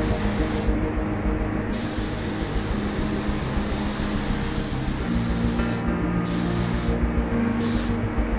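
Paint spray gun hissing as it sprays automotive paint, cutting out and back in several times as the trigger is released and pulled again: one long pass of about four seconds, then shorter ones.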